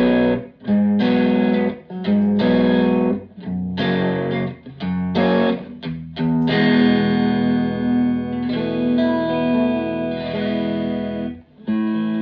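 Fender Telecaster electric guitar played through a Fender Blues Junior IV tube amp with the fat switch off. It plays short, choppy chord stabs with gaps between them, then longer ringing chords from about halfway in, with a brief break near the end.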